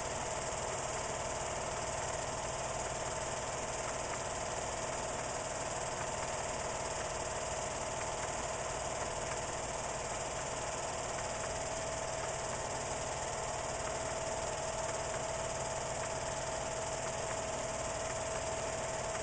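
Film projector running: a steady mechanical whir with a constant high hum that stays the same throughout.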